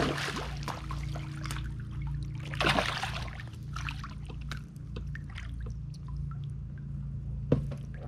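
Water splashing and trickling as a hooked bass is brought in beside a float tube, with the biggest splash about three seconds in and a sharp knock near the end.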